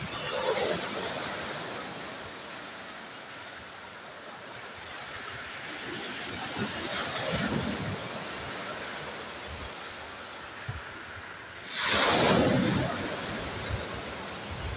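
Sea waves washing onto the shore: a steady rush of surf that swells gently twice and rises to a louder breaking wave about twelve seconds in.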